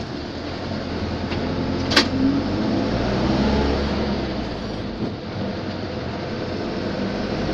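Engine and road noise of a moving vehicle on a highway: a steady low hum that grows slightly louder, with one sharp click about two seconds in.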